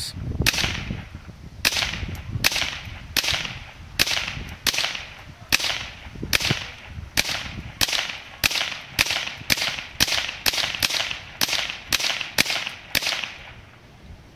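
Mossberg 715T .22 LR semi-automatic rifle firing some twenty shots in a steady string, about two a second, quickening toward the end before it stops.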